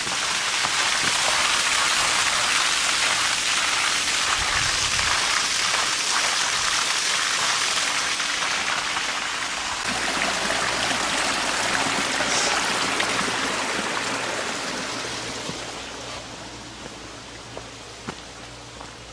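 Small spring-fed stream rushing and splashing down a rocky channel, a steady hiss of running water that fades over the last few seconds.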